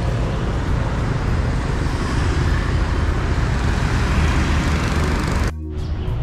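Street traffic: steady vehicle noise with a strong low rumble, cut off abruptly near the end.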